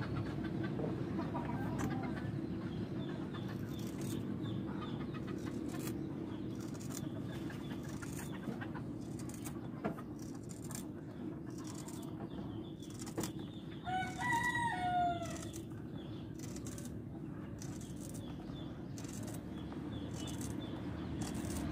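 A rooster crows once, a single call lasting about a second and a half, a little past the middle. Under it runs a steady low hum, with scattered faint clicks.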